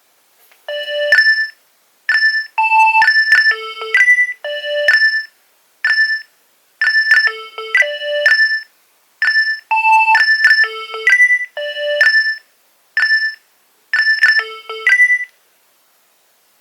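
Nokia 2300 mobile phone playing a ringtone: a melody of short electronic notes in quick groups, the same phrase played about three times. It stops about a second before the end.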